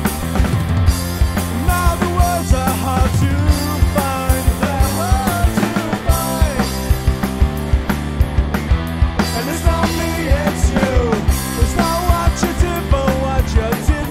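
Rock background music with a driving drum beat and a sliding lead melody.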